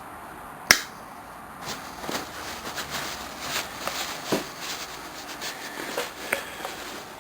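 Handling of a pair of old rusted pliers: one sharp metallic click about a second in, then a run of irregular clicks and scrapes as the stiff pliers are worked.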